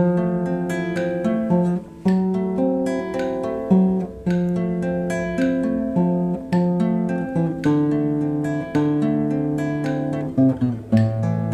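Background music: acoustic guitar strumming chords that change about every second or two.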